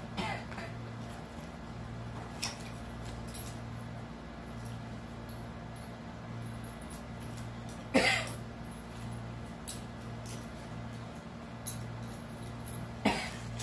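Small objects being handled: a few brief, sharp clicks and scrapes, the loudest about eight seconds in and another near the end. Under them runs a steady low hum that pulses on and off.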